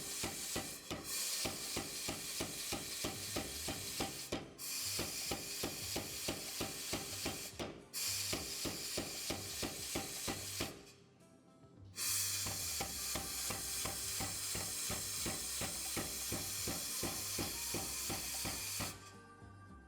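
Power hammer striking hot W2 steel in a fast, even rhythm of about four or five blows a second while drawing out a knife blade, over a steady hiss. The blows stop for about a second midway, then carry on.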